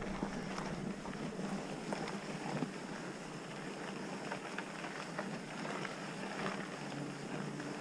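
Mountain bike rolling along a dirt trail: a steady rush of tyre and wind noise on the helmet or bike camera's microphone, with many small irregular rattles and clicks from the bike.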